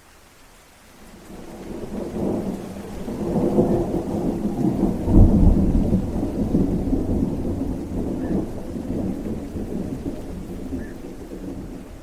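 Rolling thunder over steady rain: a deep rumble builds from about a second in, peaks around the middle, and slowly dies away.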